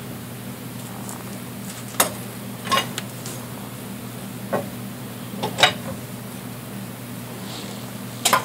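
Lug wrench clinking on the lug nuts as they are turned loose by hand: about half a dozen separate sharp metal clinks, unevenly spaced, the loudest a little past halfway and near the end, over a steady low hum.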